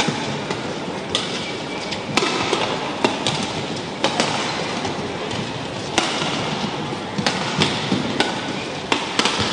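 Badminton rackets striking the shuttlecock in a fast men's doubles rally: sharp cracks about once or twice a second, over a steady hall noise.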